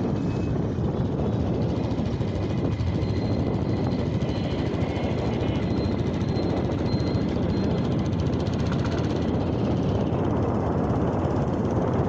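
Steady low rumble of a motorcycle on the move, its engine mixed with wind buffeting the microphone.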